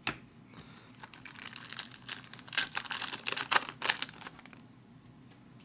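Wrapper of a hockey card pack crinkling and tearing as it is ripped open by hand. The dense crackling runs for about three seconds and dies away near the end.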